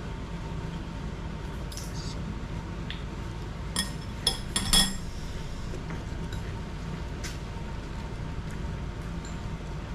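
Metal chopsticks clinking against ceramic bowls and dishes: a few light taps, then a cluster of sharper clinks about four to five seconds in, over a steady low background hum.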